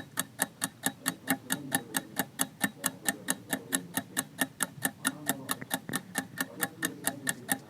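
Clock-ticking sound effect marking a quiz countdown: fast, evenly spaced ticks that run steadily through the answer pause.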